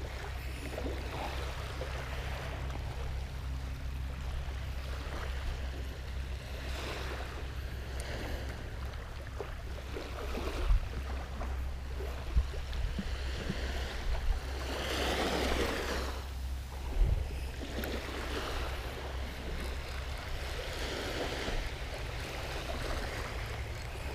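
Small waves washing onto a sandy shore, swelling and fading every several seconds, over a steady low rumble of wind on the microphone. A few short, sharp knocks come in the middle.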